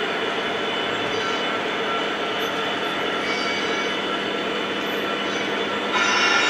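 Lionel O-gauge model train with two SD70ACe diesel locomotives, running on three-rail tubular track: a steady rolling rumble of wheels on track mixed with the locomotives' RailSounds diesel engine sound. Near the end a louder sound with several steady tones comes in.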